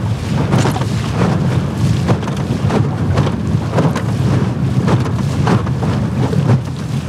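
Aluminum jon boat under way on choppy water: the outboard motor's steady drone, with the hull slapping against the waves in repeated irregular knocks and wind buffeting the microphone.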